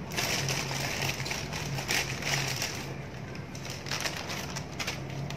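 Thin clear plastic bag crinkling and rustling as it is handled, in bursts through the first three seconds and again about four seconds in.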